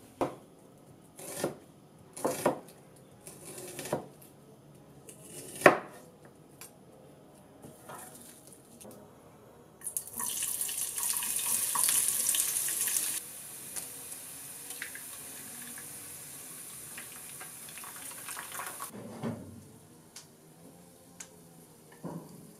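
Sliced onions frying in hot oil in a frying pan: a loud sizzle starts about ten seconds in, then after about three seconds settles to a quieter, steady sizzle that fades out near the end. Before it come several separate knocks and rustles, and a few more knocks follow the sizzle.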